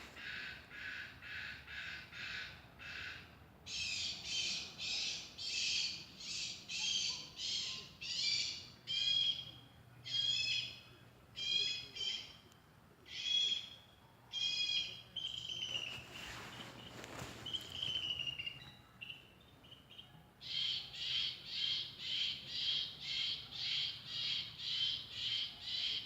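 Outdoor animal calls: short, high-pitched calls repeated in a steady rhythm of about two a second, changing in character about four seconds in. A brief rushing noise swells up about two-thirds of the way through.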